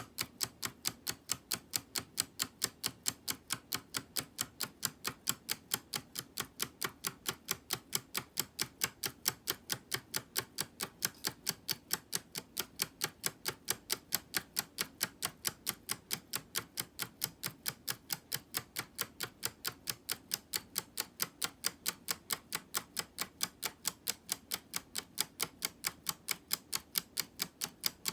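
3D-printed PLA tourbillon escapement model ticking, with an even run of sharp plastic clicks, several a second, as the escapement releases the wheel step by step.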